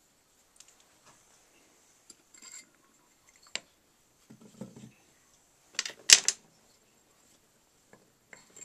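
Glass pipes and small objects being handled on a cluttered tabletop: scattered light clicks and clinks, with a louder cluster of sharp knocks about six seconds in.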